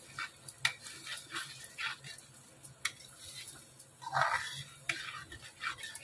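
Spatula scraping and slapping through thick tomato masala in a metal kadhai, in irregular strokes. A brief falling whine about four seconds in is the loudest sound.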